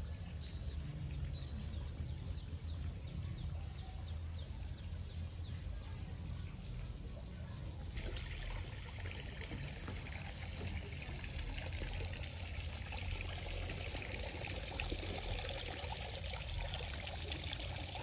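Water trickling and splashing, setting in abruptly about eight seconds in and running steadily. Before it, a string of short, high, falling chirps repeats every fraction of a second.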